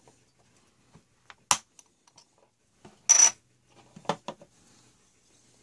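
Small metal clicks, and one louder, briefly ringing clink about three seconds in: small stainless steel watch parts and tools being handled and set down on a hard surface during the teardown.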